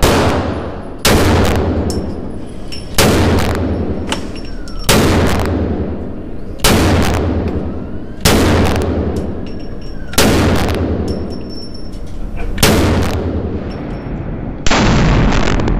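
Desert Eagle .50 AE pistol with a stainless muzzle-brake barrel firing slow aimed shots, about eight in all, roughly one every two seconds. Each loud shot is followed by a long echoing decay in the indoor range.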